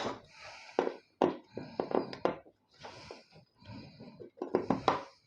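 Small metal parts of a PC power supply clicking, knocking and scraping as it is taken apart by hand, in irregular short taps with no steady rhythm.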